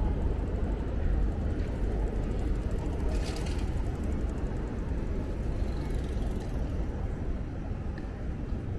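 Steady low rumble of city street noise, traffic and wind, with a brief hiss about three seconds in.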